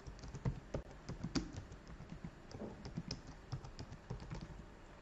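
Typing on a computer keyboard: a quick, irregular run of key clicks.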